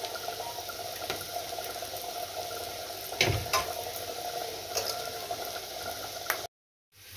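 Boiled potatoes frying in oil in a nonstick pan, a steady low sizzle. About three seconds in come a few light clicks and a knock as a metal box grater is put down on a steel plate. The sound cuts out for about half a second near the end.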